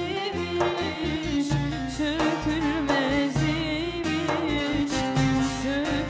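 Turkish folk music: bağlama (long-necked saz) strummed in a steady rhythm under a sustained, wavering melody line.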